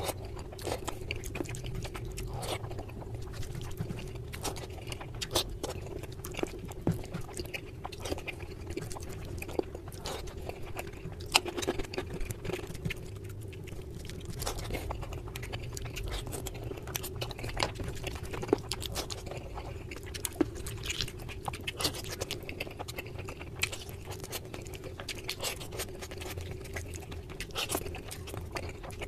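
Close-miked chewing and wet mouth sounds of a person eating chicken curry and rice by hand: many short, sharp clicks and smacks. Fingers squish and mix oily curry into the rice on the plate. A faint steady hum sits underneath.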